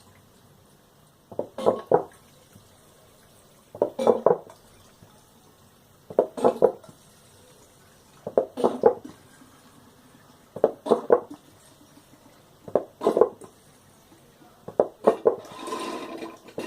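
Distilled water poured into a PC water-cooling loop's reservoir in short spurts, about one every two seconds, with a longer, steadier pour near the end.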